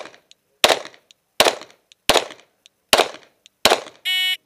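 Five 9mm Glock pistol shots fired at a steady pace, about three-quarters of a second apart, each trailing off quickly. Near the end comes a shot timer's start beep.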